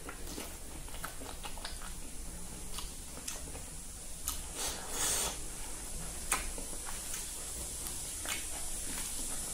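Close-up eating sounds from a man eating rice and silkworm pupae by hand: chewing and lip smacking, with scattered soft clicks and squishes of fingers working the food on a plastic plate. The loudest is a short wet burst about five seconds in.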